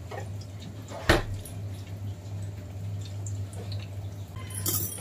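Readymade potato snacks frying in hot oil in a kadai, with light crackling over a steady low hum. A sharp knock comes about a second in, and a short scrape near the end as the pieces are stirred with a spoon.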